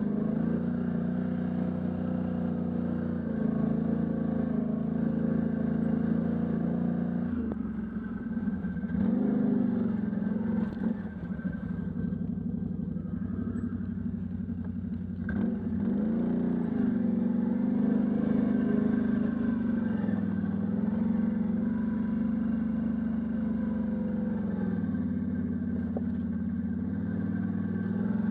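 Can-Am Outlander ATV engine running under way on a trail. The revs ease off about seven seconds in and build back up, then dip and pick up again around fifteen seconds in.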